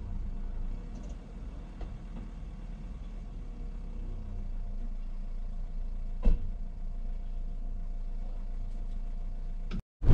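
Van engine running with a steady low rumble, with a single sharp knock about six seconds in.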